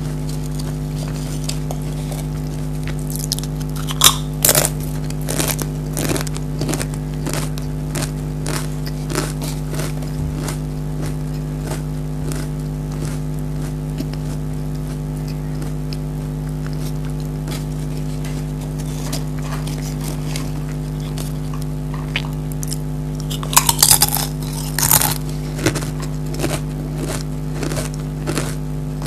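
Crunching and chewing of Pringles potato crisps: scattered short crackles throughout, with louder bursts of crunching about four seconds in and again near the end. A steady electrical hum runs underneath.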